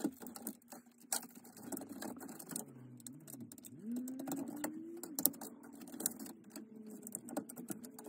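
Quick clicks and rattles of cable connectors and wires being handled and plugged into a Dell OptiPlex GX270 motherboard, the footage sped up, with a faint hum that slides up in pitch midway.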